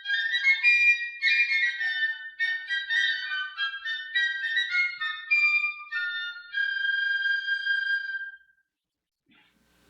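Ensemble of flutes playing a quick high passage in several parts. It settles on a held closing chord about six and a half seconds in and cuts off about eight seconds in, leaving near silence.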